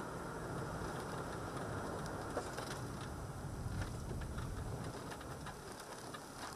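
Steady road and tyre noise with the engine running, heard from inside a moving car's cabin. It grows a little quieter near the end.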